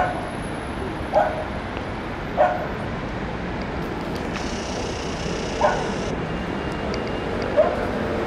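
A dog barking: five short, sharp barks a second or a few seconds apart, over steady city traffic noise, with a low steady hum joining about halfway through.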